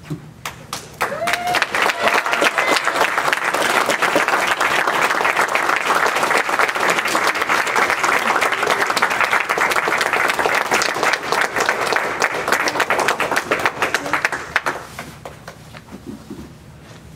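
Audience applause, a dense patter of many hands clapping, starting about a second in and dying away shortly before the end.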